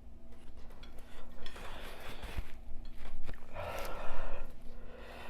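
Close-miked eating sounds during a spicy noodle mukbang: a few light utensil clicks and two longer breathy mouth noises about two and four seconds in, the second louder.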